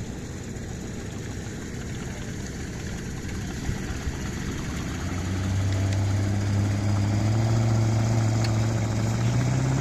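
Chevy 283 V8 marine engine running in a boat, first with a rough low rumble; about halfway through it gets louder and its note rises slowly and steadily as the engine speed is brought up.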